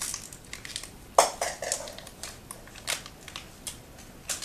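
Small plastic toy packet from a Kinder Surprise egg being handled and opened by hand: irregular crinkles and sharp snapping clicks, the loudest about a second in.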